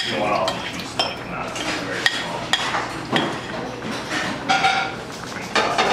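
A utensil scraping and knocking against a ceramic mixing bowl and a metal saucepan as batter is scraped out of the bowl into the pot: a series of sharp clinks and taps, irregularly spaced.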